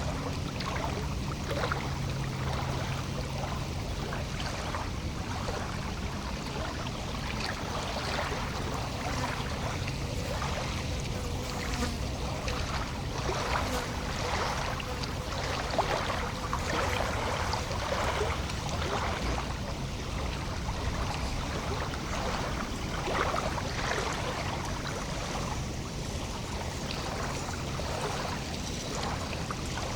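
Lake water lapping against the shore: small waves making irregular little splashes and trickles over a steady wash.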